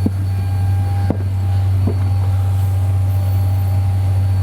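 Loud, steady low machine hum with a faint constant whine above it, and a few light knocks about a second apart.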